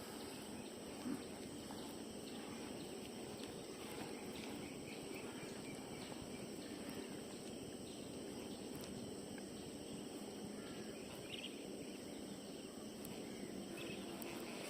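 Faint, steady outdoor ambience with a constant high insect drone, and one small click about a second in.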